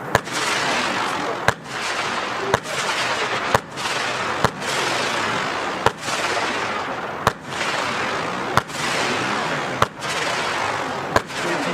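Nico Swimming Star F2 firework battery firing: a sharp bang about every second or so, about ten in all, with a dense hissing crackle between the shots.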